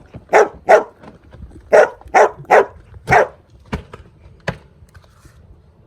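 A dog barking: about six short, loud barks in the first three seconds, then two sharp knocks.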